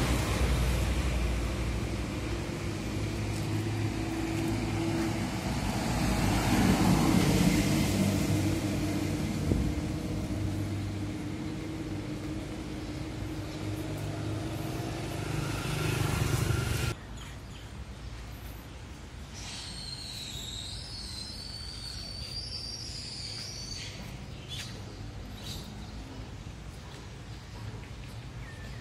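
Street traffic: engine hum and tyre noise from passing cars and motorbikes, swelling as vehicles go by. About two-thirds of the way in it cuts off suddenly to a quieter street background.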